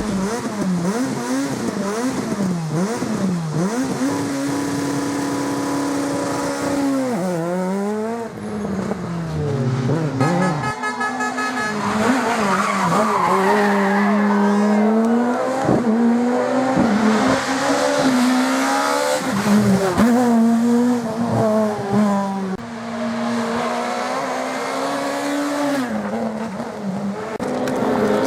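Rally car engines revving hard and dropping back through gear changes as the cars drive a stage at speed, with tyre noise. There is a short crackle of rapid pops about ten seconds in.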